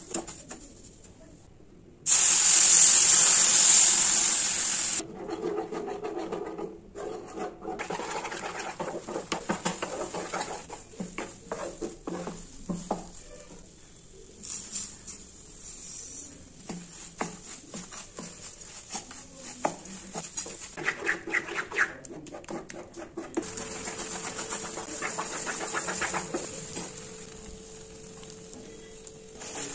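Semolina being cooked in a nonstick pan. About two seconds in, a loud sizzling hiss lasts about three seconds as liquid hits the hot roasted semolina and steams. After that a wooden spatula scrapes and knocks as it stirs the thickening mixture.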